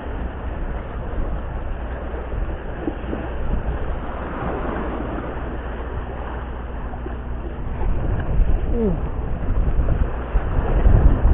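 Wind buffeting the microphone in a steady low rumble over small waves washing against breakwater rocks, growing louder near the end.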